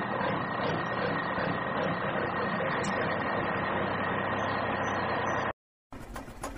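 Steady idling truck engine, likely a dubbed sound effect for the toy tipper truck, which cuts off abruptly about five and a half seconds in. After a brief silence a different engine sound starts, a fast, rattly clicking.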